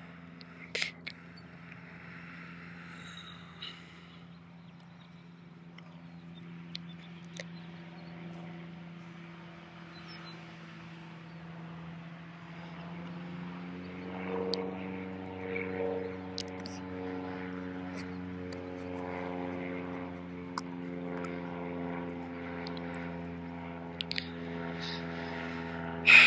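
A steady engine drone, growing louder about halfway through, with a few faint sharp clicks.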